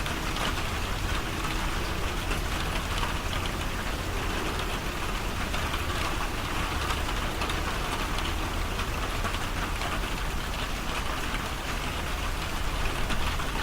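Heavy rain pouring down, a steady hiss of rain on surfaces with a low, even rumble underneath.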